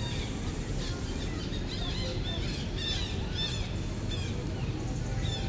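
Small birds chirping: quick runs of short, high, arched notes, strongest in the middle and again near the end, over a steady low background rumble.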